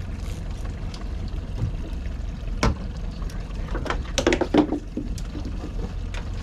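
Water splashing and dribbling at the side of a boat, with a sharp knock a little before the middle and a cluster of splashes and knocks just past it, over the low steady hum of the boat's motor.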